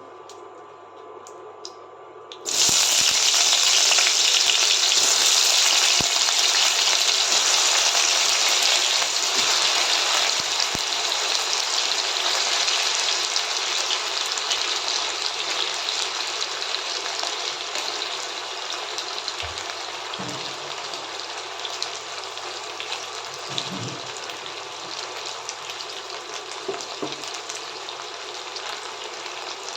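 Cut potato pieces dropped into hot mustard oil in a kadai. A loud sizzle starts suddenly about two seconds in and slowly dies down as the frying settles.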